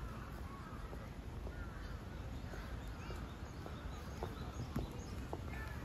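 Red panda pushing a hard plastic treat-ball feeder over dry leaves and dirt, the ball giving several sharp knocks in the second half. Small birds chirp in the background.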